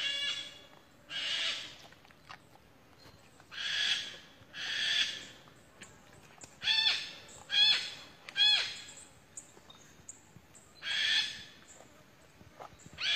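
Wild boar giving about eight loud, high-pitched distress squeals, each about half a second to a second long, some falling in pitch, as a Komodo dragon bites into it.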